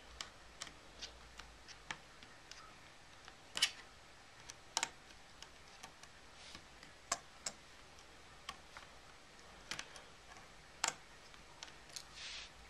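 Small, irregular clicks and taps of fingers working the edge of a white plastic MacBook top case, a dozen or so sharp clicks scattered through, with a brief scrape near the end.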